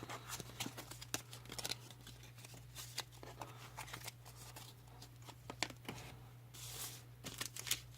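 Trading cards being handled: faint scattered clicks and light rustles as cards are flipped and set down, with a short rustle near the end, over a steady low hum.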